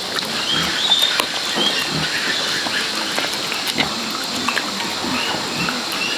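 Dogs and cats eating rice from metal bowls: a steady run of wet chewing and smacking, with small clicks of teeth and muzzles against the bowls.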